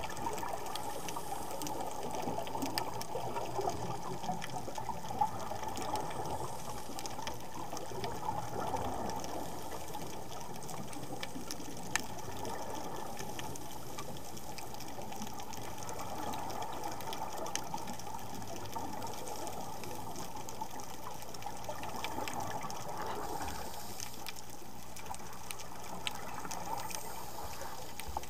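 Underwater ambience picked up by a camera in a waterproof dive housing: a steady rushing of water with a few scattered sharp clicks.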